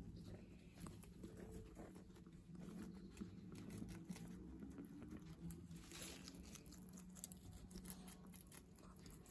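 Guinea pigs chewing crisp Belgian endive and pak choi leaves: faint, quick crunches and clicks.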